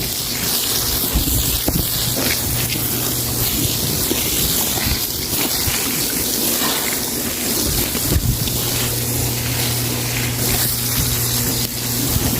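Wet floor being washed: a steady rush of water hiss, with a low steady motor hum underneath.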